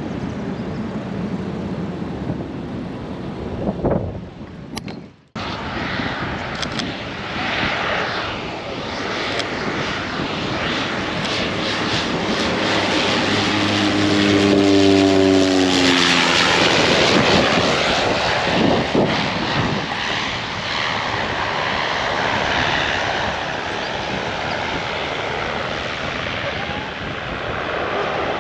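Single-engine Cessna 208B Grand Caravan turboprop passing low overhead on landing approach. Its propeller drone swells and drops in pitch as it goes by, about halfway through, over steady wind noise and distant voices.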